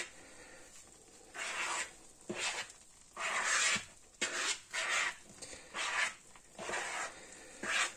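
A spoon stirring flour, yeast starter and water into a sticky langos dough in a bowl: a rubbing, scraping sound in uneven strokes about once a second.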